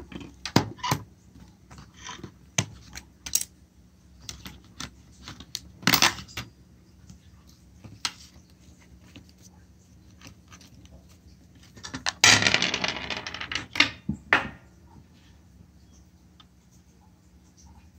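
Handling noise from a Sony ICF-SW1 pocket radio being turned over on a brass tray and its battery compartment opened: scattered sharp plastic clicks and knocks, with a longer rattling, scraping stretch about twelve seconds in.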